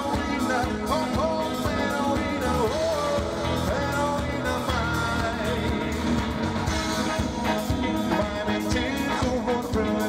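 Live band music: a song with a lead singer over the band.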